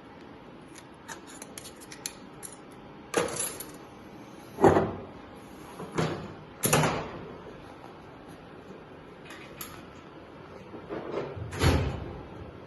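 Metal automatic-transmission parts clanking and knocking as they are handled: about five sharp knocks, the loudest about five seconds in, with light clicks in the first couple of seconds.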